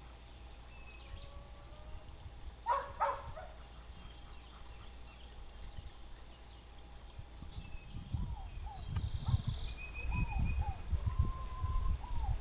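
Several wild birds chirping and whistling in short, scattered calls. A low rumbling noise comes in about eight seconds in.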